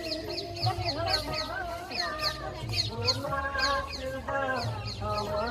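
Birds calling in a rapid series of short, falling chirps, about three a second, over the chatter of a crowd of people.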